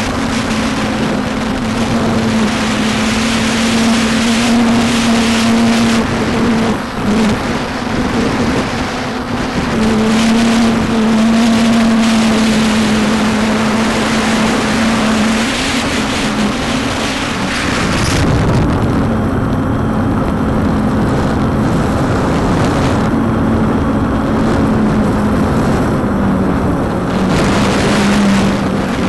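Walkera Tali H500 hexacopter's motors and propellers humming at a steady pitch that wavers slightly, under heavy wind noise on the microphone. About two-thirds of the way through, the wind noise turns to a deeper rumble.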